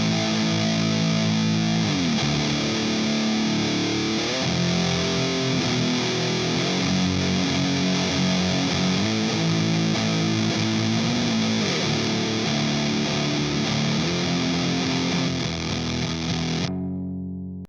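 Heavily fuzzed electric guitar in B standard tuning, played through a Minotaur Sonic Terrors Fuzz and Burn pedal into a Matamp GT120 amp. It plays a slow, sustained doom riff with several sliding notes. Near the end the last note loses its top end and fades out.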